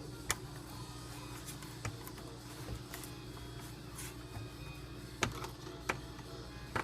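Scattered sharp metal clicks of a hand tool working worm-gear hose clamps, at uneven intervals over a steady low hum.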